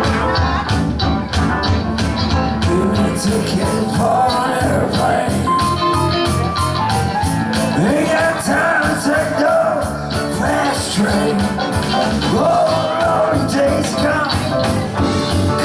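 A rock-and-roll band playing, with a steady beat from guitar, bass and drums and a wavering melody line over it from about four seconds in.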